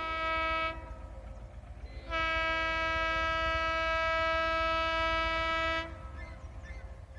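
Indian Railways locomotive air horn: a blast that cuts off within the first second, then one long steady blast of nearly four seconds starting about two seconds in, over a low rumble.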